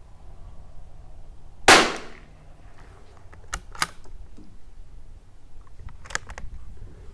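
A single shot from a Tikka T1x bolt-action .22 LR rifle, sharp and short with a brief echoing tail. About two seconds later come two crisp metallic clicks, and another short cluster of clicks near the end, typical of the bolt being worked to eject and chamber a round.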